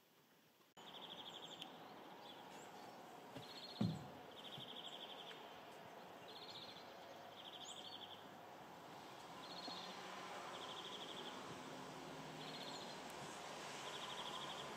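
Quiet outdoor garden ambience starting just under a second in. A high, rapid trill sounds in short bursts about every second and a half, alternating between two slightly different pitches, from a small bird or insect. There is one dull thump about four seconds in.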